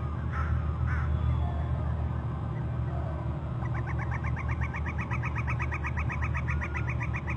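Bird calling: two short rising calls near the start, then about halfway in a fast, even run of high piping notes, about eight a second, lasting some four seconds, over a steady low rumble.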